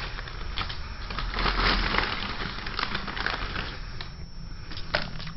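Dense, irregular crackling and clicking, like something being crushed, with a few sharper clicks near the end.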